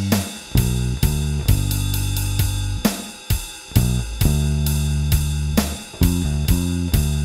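Electric bass, a Mustang bass with a Nordstrand angled-pole pickup run through a Seymour Duncan Studio Bass Compressor, playing a slow blues line of long held notes with short breaks. It plays over a drum track with steady hi-hat, snare and cymbal hits.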